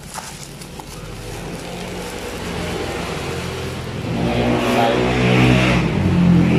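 A road vehicle on the highway passing by, its engine and tyre noise swelling steadily and loudest near the end.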